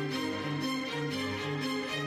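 Background music with held notes over a steady low pulse.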